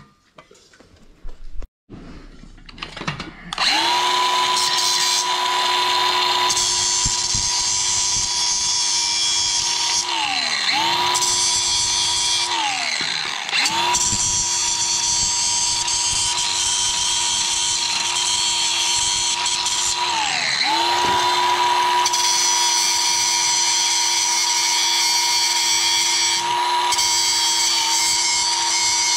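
Angle grinder starting up a few seconds in, then grinding on the steel exhaust pipe of a muffler with a steady high whine. Its pitch sags and recovers about three times.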